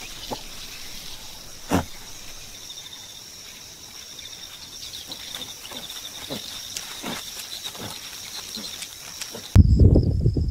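Savanna ambience of steady insects buzzing, with scattered short, low animal sounds and a sharper knock-like sound about two seconds in. Near the end it cuts abruptly to a much louder low rumble under pulsing, chirping insects.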